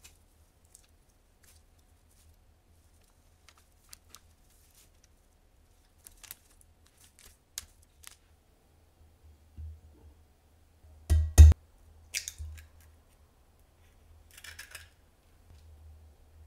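Kitchenware being handled and set down on a counter mat: scattered light clicks and taps, with a sharp double knock about eleven seconds in as the loudest sound, and a short rustle near the end.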